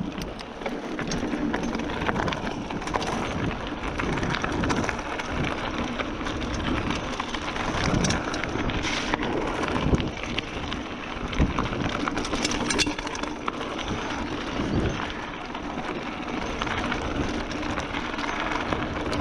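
Giant Fathom 1 29er hardtail mountain bike riding down a trail: a steady rush of tyre noise over the dirt, broken by many short knocks and rattles from the frame and chain as it hits bumps.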